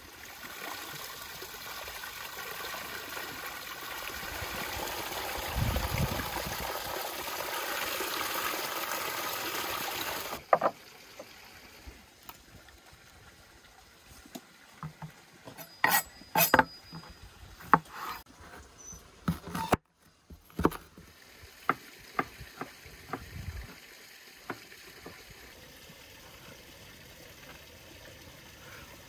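A steady hiss swells for about ten seconds and stops abruptly. Then come scattered sharp snaps and taps: a bell pepper is cracked open by hand and chopped with a knife on a wooden cutting board.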